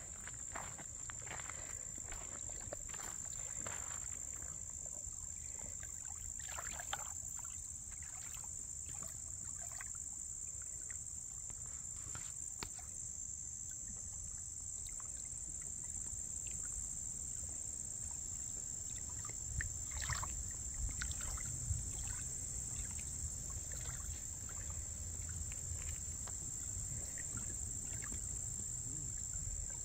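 Steady high-pitched insect chorus of summer crickets or similar insects, with a low rumble that swells about two-thirds of the way through and scattered soft rustles or steps in the first half.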